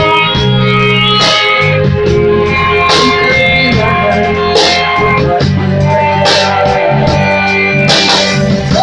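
Live amplified band music led by electric guitar over a steady bass line, with a hit that reaches up into the highs about every second and a half.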